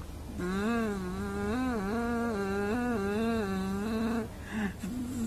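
A person's voice holding one long wordless, wavering sung note for nearly four seconds, then starting another just at the end.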